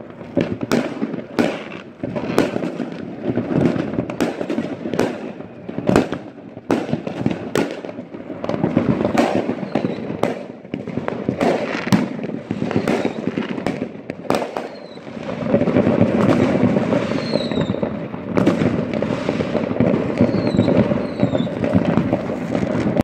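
Many fireworks going off across the city at once: irregular sharp bangs over a continuous rumble and crackle of more distant bursts, which grows fuller about two-thirds of the way in. A few faint short whistles sound in the second half.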